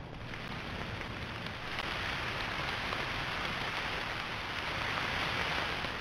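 Steady hiss of rain falling on the woods, growing a little louder about two seconds in.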